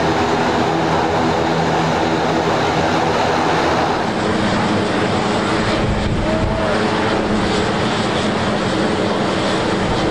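Cal Fire Grumman S-2T Tracker air tanker's twin Garrett TPE331 turboprop engines running loudly as it taxis, a steady propeller drone with several held tones over a rushing hiss.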